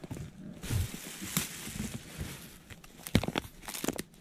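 Handling noise as purses and clothes are rummaged in a plastic tote: a stretch of rustling, then several sharp clicks and knocks in the second half as a purse is handled and opened.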